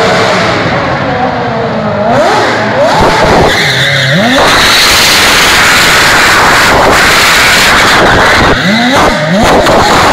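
Formula 1 car engine revving hard under acceleration. Its pitch sweeps steeply upward several times as it climbs through the revs, once about two seconds in, again near four seconds, and again near nine seconds. Between the sweeps there is a long stretch of loud rushing hiss.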